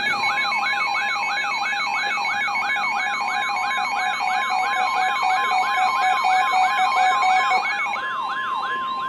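Weather-alert receiver tones overlapping: a fast siren-like wail repeating about three times a second, with pulsing beeps that stop about a second before the end. From about three seconds in, a long steady NOAA Weather Radio warning alarm tone joins them, signalling that a warning broadcast is about to follow.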